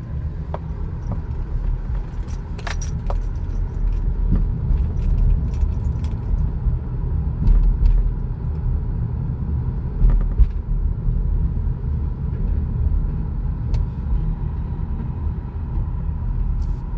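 Road noise inside a moving car: a steady low rumble with scattered small rattles and clicks.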